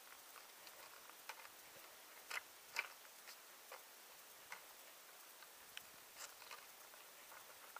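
Faint, irregular clicks and taps of trekking-pole tips and boots striking stones on a rocky mountain path, about a dozen sparse ticks with the loudest a little over two seconds in.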